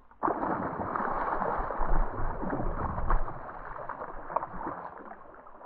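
A small hooked barramundi thrashing and splashing at the water's surface. The splashing starts suddenly just after the start and dies away near the end.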